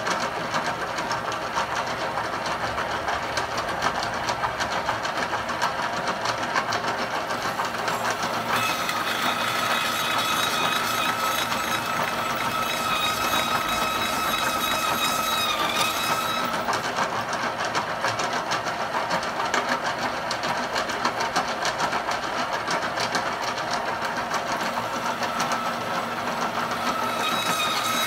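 Milling machine spindle driving a carbide-tipped hole saw into thick steel plate: a steady machine whine over a continuous grinding, chattering cut. The whine is strongest through the middle and sags briefly in pitch about 15 seconds in, then returns near the end. This is a cut in which the saw's relief openings pack tight with chips until it stops cutting.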